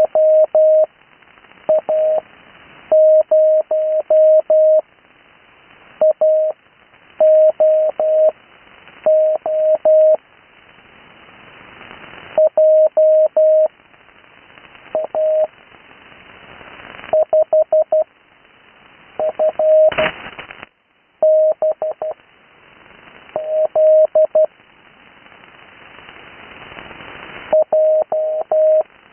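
Morse code (CW) on the 80 m amateur band: a single steady tone keyed into dots and dashes, sent slowly as separate characters with long gaps between them. Receiver hiss fills the gaps and swells up while the tone is off, and a brief crackle of static comes a little over two-thirds through.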